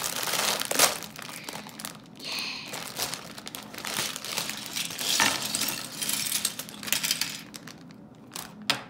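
Clear plastic bag of LEGO pieces crinkling as it is handled and pulled open, with the plastic bricks inside clicking against each other. Several sharp clicks near the end as the pieces are tipped out onto the table.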